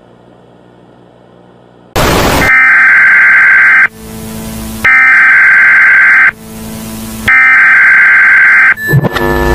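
Emergency Alert System header tones: after a short burst of static, three harsh, loud buzzing data bursts of about a second and a half each, with short pauses between them. A new tone begins near the end.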